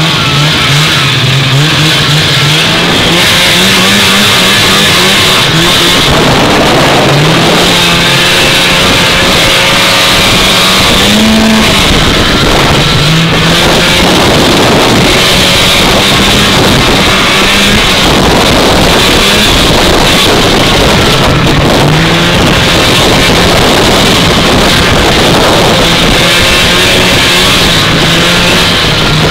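Vintage two-stroke snowmobile engine running at speed during a ride, its pitch rising and falling in steps as the throttle is worked, over steady rushing noise.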